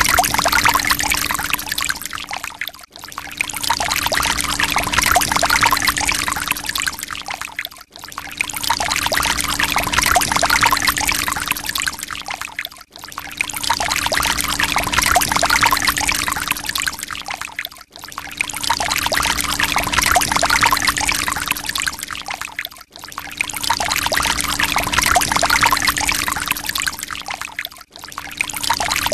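Water pouring in a steady stream, played as a loop that repeats about every five seconds with a short dip between repeats. A steady low hum runs underneath.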